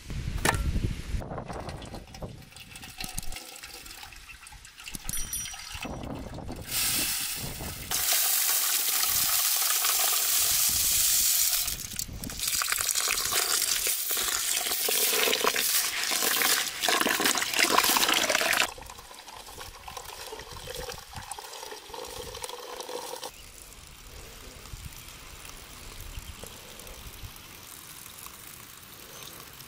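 Water poured in a steady stream onto rice in a metal pot as the rice is washed, running for about ten seconds with a brief break partway through, then stopping.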